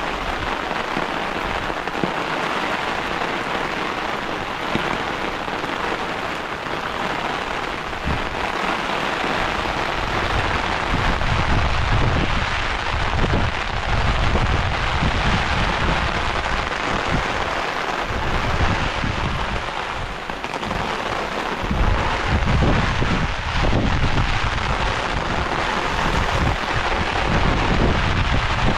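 Heavy rain falling steadily, a dense hiss of drops, with stretches of low rumble from about a third of the way in and again near the end.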